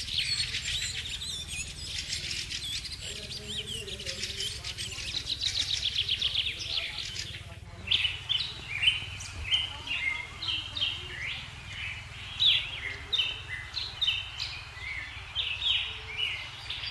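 Small birds chirping and calling: a dense, rapid high chatter for the first eight seconds or so, then after an abrupt change, separate short chirps and whistled notes.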